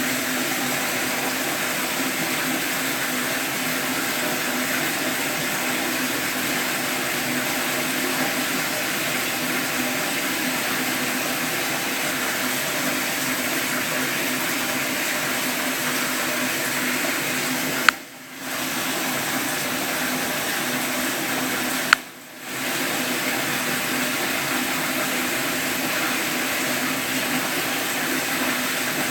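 Steady rush of running water with a faint low hum. Twice in the second half, a sharp click cuts in and the water sound drops out for about half a second before returning.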